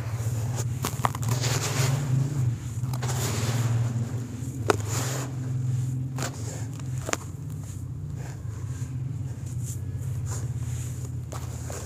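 Hands crumbling, stirring and dropping dry, lumpy soil in a plastic basin: rustling and pattering as the clods break and fall, with a few sharp clicks. A steady low hum runs underneath.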